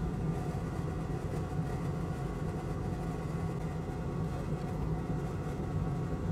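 Steady low mechanical hum with faint constant tones above it, unchanging throughout: background machine or fan noise.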